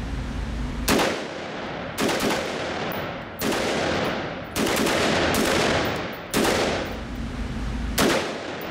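Budget-built AR-15 rifle firing about seven shots at an unhurried pace, roughly a second apart. Each report echoes off the concrete walls of an indoor range.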